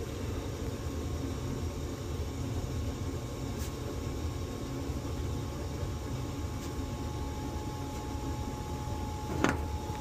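Rheem 80% gas furnace running: a steady low hum and rush from its motors with a faint steady whine. A single sharp click comes about nine and a half seconds in.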